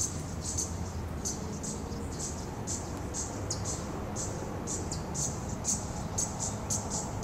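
Baby Black-tailed Trainbearer hummingbird chirping: short, high, thin squeaks repeated about twice a second over a low background hum.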